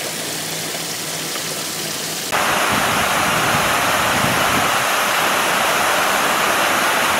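Water pouring steadily from a ceramic pitcher fountain into a small rock pool. A little over two seconds in, it cuts to the louder, fuller rush of a waterfall spilling down a rock wall into a pond.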